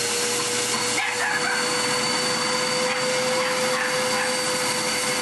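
Small electric vacuum pump running steadily with a constant whine, drawing the air out of a vacuum storage bag to compress it.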